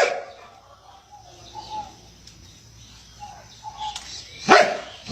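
A dog barking: one sharp bark right at the start and another about four and a half seconds in, with faint short whines between.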